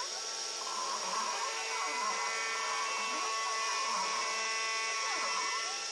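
Homemade desktop CNC mill engraving: a steady high spindle-motor whine, with the stepper motors humming in tones that slide up and down in pitch as the axes speed up and slow down.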